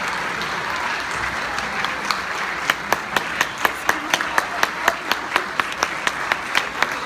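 Audience applauding. From a couple of seconds in, one pair of hands close by claps sharply and steadily at about four or five claps a second, louder than the rest.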